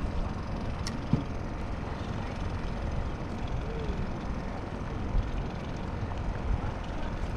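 Steady wind and water rumble on the action-camera microphone, with a few short knocks about a second in and again about five seconds in.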